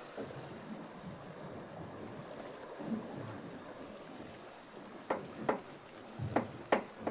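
Wind and choppy sea water washing around a small drifting boat, a steady rushing hiss. In the last two seconds come about five sharp taps and clicks, one with a low thump.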